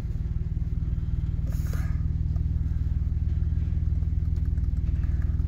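Off-road 4x4 engine running steadily at low revs, a low even rumble, with a brief hiss about a second and a half in.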